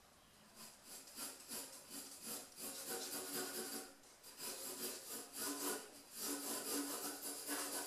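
Pencil scratching across drawing paper in quick, repeated strokes, with a brief pause about four seconds in.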